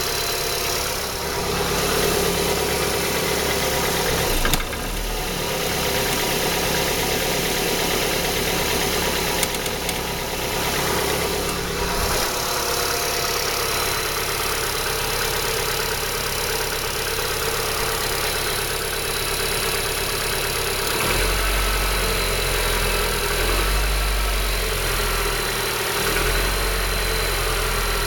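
Opel C20SED 2.0-litre four-cylinder petrol engine running, with a knock. Its low rumble grows stronger about three-quarters of the way through.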